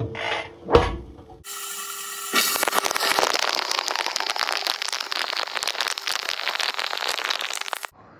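Two knocks, then water spraying and splashing inside a running dishwasher in a dense, crackling hiss that cuts off suddenly near the end.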